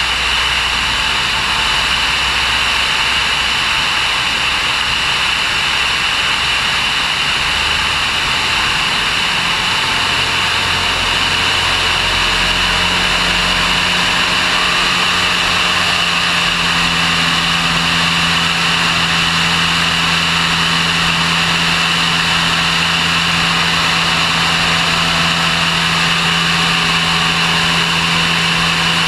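Aircraft engine and propeller running steadily in flight, heard from an onboard camera with air rushing past; the engine note shifts about a third of the way in and then holds steady.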